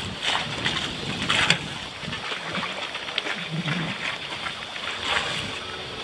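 Steady rush of wind and water on board a sailboat out on open sea.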